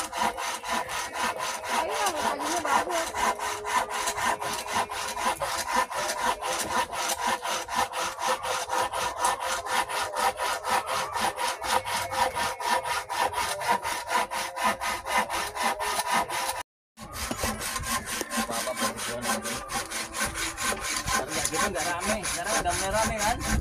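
Hand saw cutting through an old wooden plank with quick, even back-and-forth strokes, broken by a brief dropout about two-thirds of the way through.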